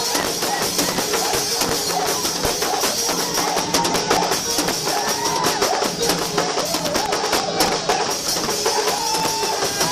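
Music with drums and percussion playing continuously.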